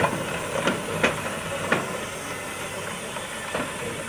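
Corpet-Louvet 0-4-0 steam locomotive moving slowly, with steam hissing steadily. Sharp metallic clanks come at irregular intervals, several in the first two seconds and one more near the end.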